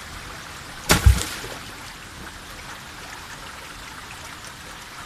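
A shallow rocky stream running steadily, broken about a second in by a thrown stone striking the water: two sharp hits close together with a short splash.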